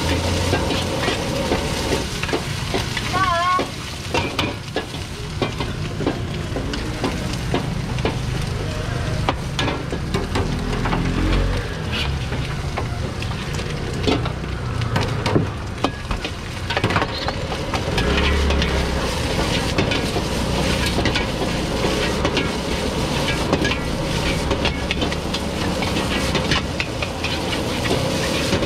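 Egg fried rice sizzling in two iron woks over high gas flames, with metal wok ladles scraping and clanking against the pans over and over as the rice is tossed.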